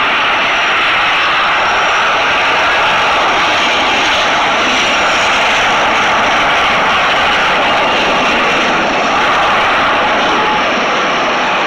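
Jet airliner engines during landing: a steady, loud rush of engine noise with a faint high whine above it.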